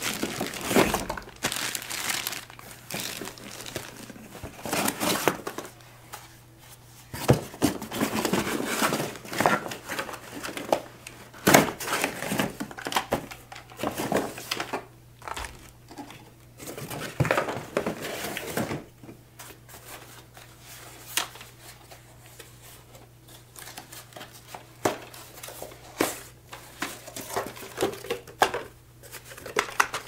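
Cardboard packaging and plastic bags being handled: irregular crinkling, rustling and knocks, busy for the first two-thirds, then thinning to occasional clicks and knocks as plastic vacuum parts are set down. A low steady hum runs underneath.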